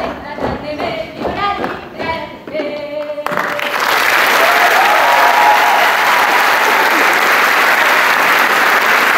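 Voices singing a Breton dance tune over rhythmic thumps of dancers' feet on a stage floor. The song stops abruptly about three seconds in, and loud, sustained audience applause follows.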